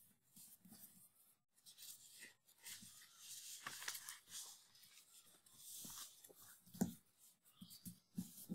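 Faint rustling and sliding of paper sheets as a written page is taken away and a blank one laid down, with a few soft thuds.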